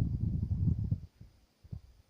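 Birds pecking and hammering at a feeder: a fast run of low knocks for about a second, then a few separate taps.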